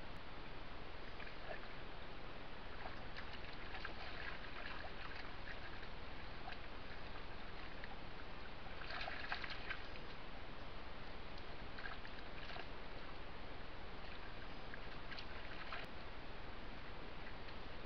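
Shallow creek running, with irregular bursts of splashing as deer wade through the water, the strongest about nine seconds in.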